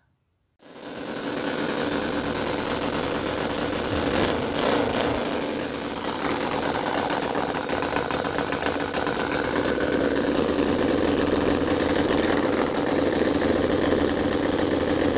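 CISON FG-VT9 9cc four-stroke V-twin model petrol engine running steadily, coming in after a brief silence about half a second in.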